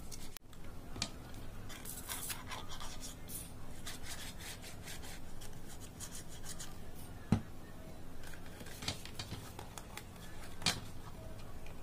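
Hands rubbing and handling glued yellow craft paper, with scratchy rubbing strokes. A sharp knock comes a little past halfway and a lighter one near the end.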